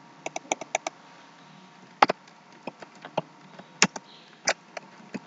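Computer keyboard typing: a quick run of about five key taps a quarter second in, then single taps at uneven gaps, as watermark text is typed into a dialog box.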